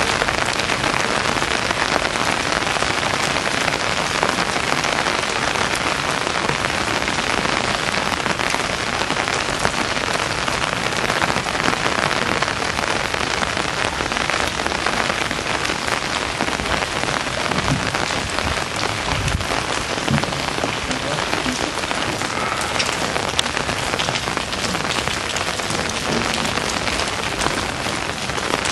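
Steady rain falling on a canal, a dense even hiss of drops. A few low thuds come about two-thirds of the way through.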